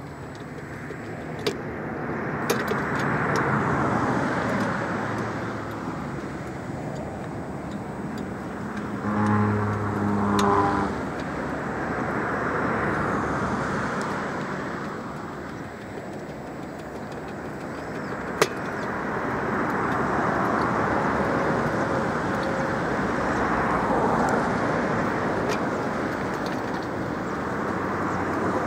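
Road traffic going past, a wash of noise that swells and fades every several seconds. About nine seconds in, a passing vehicle adds a short pitched drone, and a few sharp clicks stand out.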